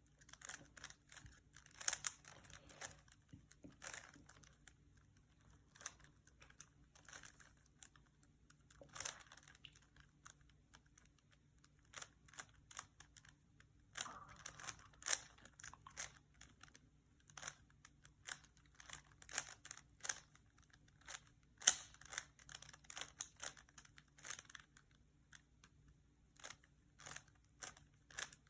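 Plastic layers of a Rubik's Cube being turned by hand during a solve: irregular bursts of clicks and clacks, with short pauses between runs of turns.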